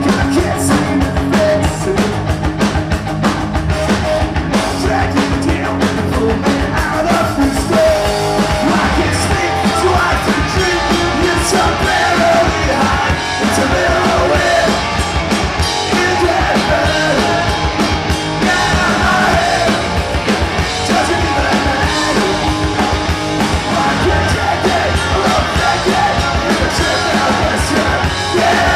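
Rock music with drums, guitar and singing; the voice comes in about eight seconds in.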